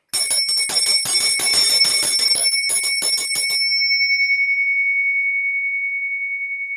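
Small hand bell shaken rapidly, its clapper striking many times for about three and a half seconds, then left to ring on and slowly fade with a wavering beat. Its note is C sharp 7.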